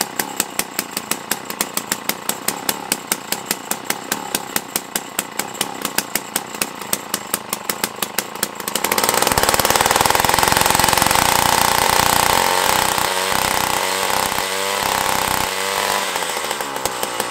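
Jiffy 30 ice auger's Tecumseh 3 hp two-stroke engine running at idle with an uneven pulsing beat, about four or five pulses a second, while its idle screw is being adjusted. About nine seconds in it revs up to a loud, steady high-speed run, then the revs ease and waver near the end.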